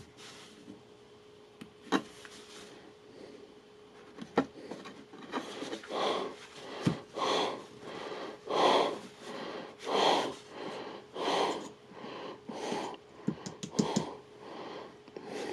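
A person breathing close to the microphone in regular noisy breaths, roughly one every second and a bit. A few sharp handling clicks come before the breathing sets in.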